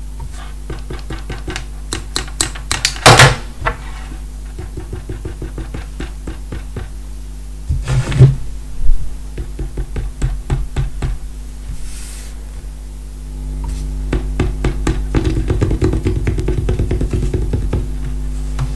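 Amplified output of a DIY electronic engine stethoscope during its first bench test: a steady electrical hum under rapid scratching and clicking as the microphone and its cable are rubbed and tapped. There are loud knocks about three and eight seconds in, and the hum grows louder in the last few seconds.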